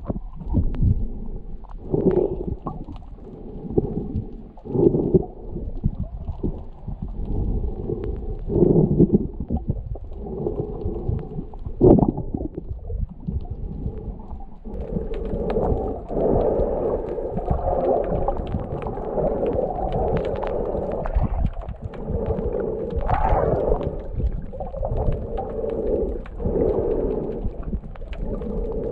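Muffled underwater sound heard through a submerged camera: low rumbling and gurgling of moving water, with several louder surges in the first half and a steadier churn from about halfway.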